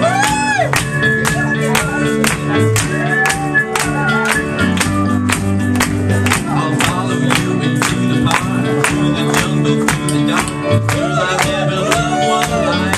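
Live rock band playing a song with a steady beat: electric guitars, bass, drum kit and keyboard, with a tambourine and a man and woman singing.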